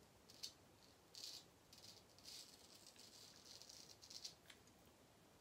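Faint scratchy scrape of a Gold Monkey straight razor cutting stubble through shaving lather, in a series of short strokes.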